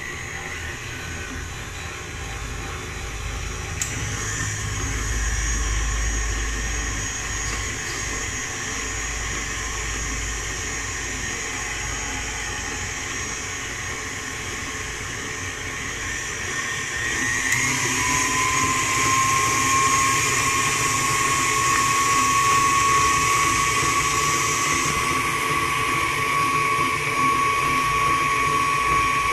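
KitchenAid Artisan stand mixer running with its flat beater mixing cake batter. About two-thirds of the way through it is switched to a higher speed: its motor whine rises in pitch, gets louder, then holds steady.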